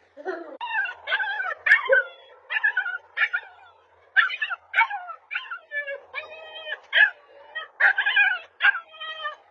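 Husky puppy vocalizing in a rapid string of short, high-pitched yelps and wavering calls, a few each second, some falling in pitch.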